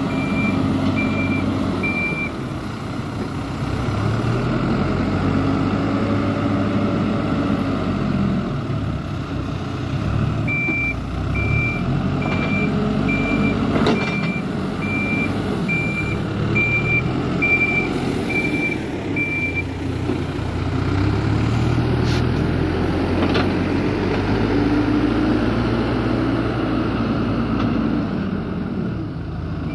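A vehicle's reversing alarm beeping at a steady single pitch, about one beep every 0.8 s, during the first two seconds and again from about ten to nineteen seconds in. Underneath, a heavy engine runs steadily throughout, its pitch rising and falling as it revs.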